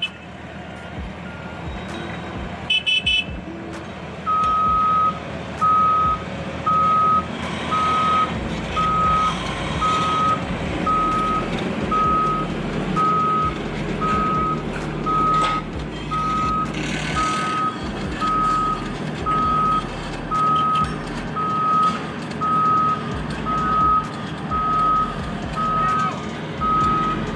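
A heavy vehicle's reversing alarm beeping about once a second, starting about four seconds in, over the steady rumble of its engine running.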